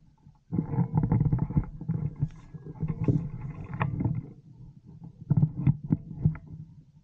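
Rough handling and rustling noise on a camera microphone as the camera and the airsoft rifle are moved through tall grass into an aiming position, with several sharp knocks over the last few seconds.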